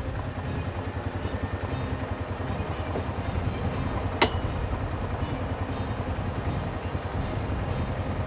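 A motor vehicle's engine idling steadily, a fast even low rumble, with a single sharp click about four seconds in.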